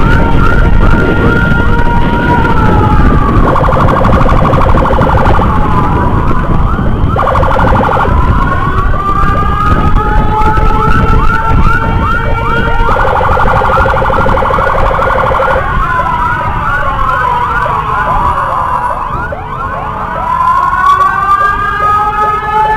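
Electronic escort siren on a motorcycle, cycling through its modes: a steady two-note tone, then bursts of fast warble and slow rising and falling wails, switching every few seconds. Steady riding rumble and wind noise lie underneath.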